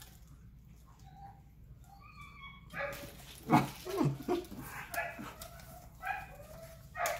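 Pet dogs whining and yipping, faint at first and louder from about three seconds in.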